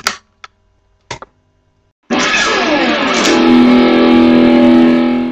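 Guitar music: a few short, sharp plucked notes, then about two seconds in a loud strummed guitar chord that rings on steadily and stops at the end.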